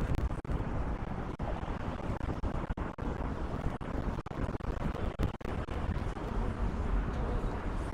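Steady city-street traffic noise, with a low rumble of wind buffeting the microphone.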